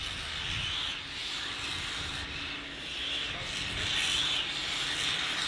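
Steam locomotive hissing steam: a rasping hiss that surges and eases irregularly every second or so.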